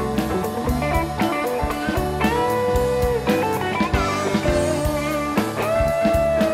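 Background rock music: an electric guitar playing held notes with string bends over a steady drum beat.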